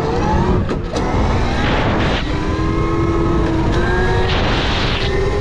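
Electric dirt bike under hard acceleration: the motor's whine climbs in pitch, breaking off and starting again lower a couple of times before rising slowly, with heavy wind rush on the microphone.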